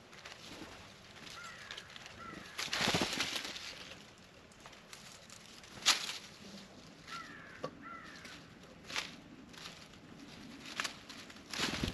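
Small birds at a plate of peanuts: short paired chirping calls heard twice, a second-long rustle about three seconds in, and several sharp clicks and taps.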